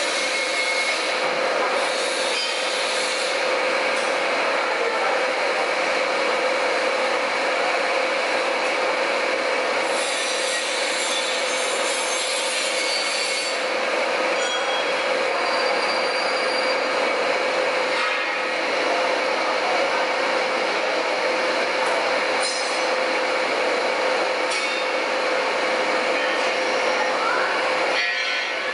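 A CNC machine running steadily: a continuous loud grinding, rubbing noise with a steady high whine through it.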